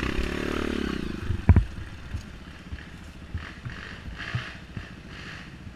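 Dirt bike engine revving up and falling back, followed about a second and a half in by two sharp knocks, then running quieter with scattered noise.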